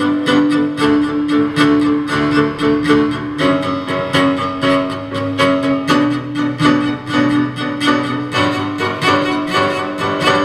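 Live piano trio of grand piano, cello and violin playing a slow piece: the piano keeps a steady pulse of repeated notes, about three a second, under long bowed cello and violin lines.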